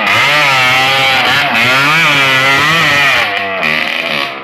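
Motorcycle engine running hard, its pitch rising and falling repeatedly as the throttle opens and closes.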